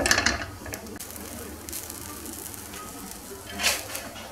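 Semolina harcha dough sizzling softly on a hot griddle pan inside a metal ring mold, with a short scrape about three and a half seconds in as a spatula slides under the metal ring against the pan.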